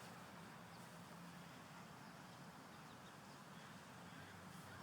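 Near silence: faint, steady outdoor background noise.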